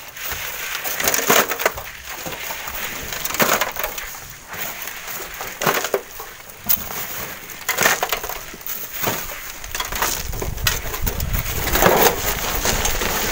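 Irregular knocks and scrapes of rock and sand against steel wheelbarrows as a broken rock is loaded and wheeled off, then the load tipped out onto loose gravel near the end, with a low rumble from about ten seconds in.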